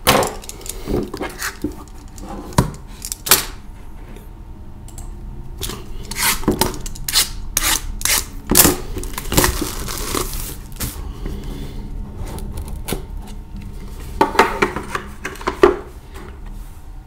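A cardboard card box being cut open and handled: scattered clicks and knocks, a stretch of scraping and rustling as a blade runs along the seal about six to eleven seconds in, then more clicks as the lid comes off and the box is set down.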